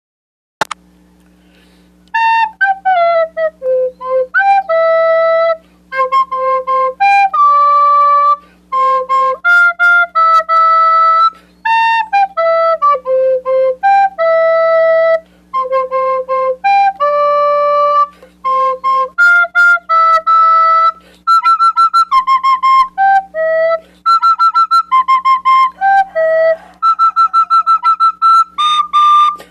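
Recorder (flauta dulce) playing a pop melody solo, note by note with short breaks between phrases. A click comes just after the start, and there is a faint steady hum underneath.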